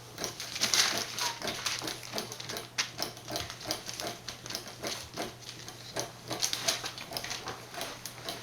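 Young Border collie puppies moving about: many irregular small clicks and scuffles of paws pattering and scrabbling, with one short faint whimper about a second in.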